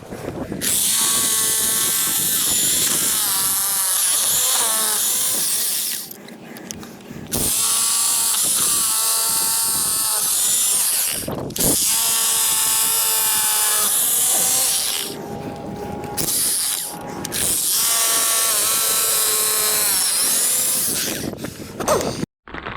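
Power drill boring holes in four long runs with short pauses between them. The motor's whine sags and recovers as the bit loads up.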